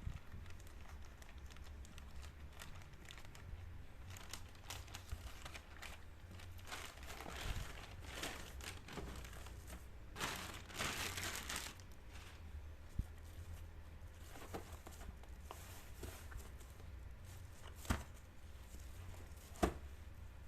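Packaging being unwrapped by hand: crinkling and tearing with scattered clicks and knocks, busiest for about two seconds near the middle, over a low steady hum.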